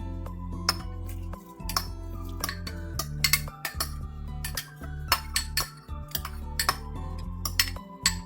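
Background music over repeated, irregular clinks of kitchen utensils against dishes.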